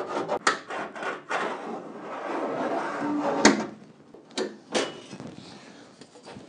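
A steel scribe scratching along the edge of a sheet-steel patch panel held against a VW Beetle's inner fender, marking a trim line with short rasping strokes. It ends with one louder scrape, then two sharp metal knocks about a second later as the panel is taken off.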